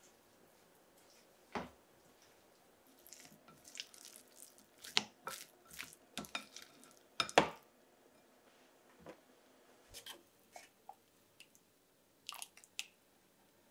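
Scattered clinks and knocks of kitchen utensils and dishes being handled, at an uneven pace, the loudest about seven seconds in.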